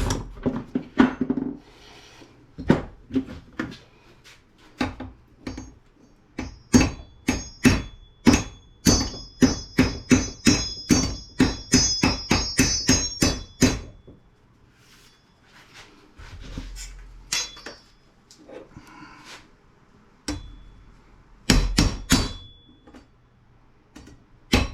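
Repeated hammer blows on metal scrap parts, about two strikes a second for some ten seconds, many leaving a short metallic ring. After a pause, a few more strikes near the end.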